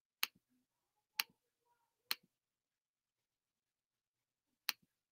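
Four sharp computer mouse clicks: three about a second apart, then one more near the end, with near silence between them.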